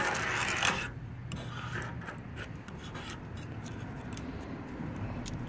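Razor blade scraping loose base-coat paint off a car's body panel, the paint lifting away in sheets. A louder rasping scrape in the first second, then lighter scraping with scattered small ticks.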